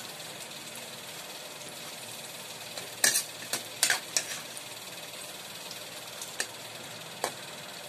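Onion, ginger and garlic sizzling in oil in a metal wok while being stirred with a metal ladle. The ladle scrapes and clanks against the wok in a quick cluster about three seconds in, and twice more later.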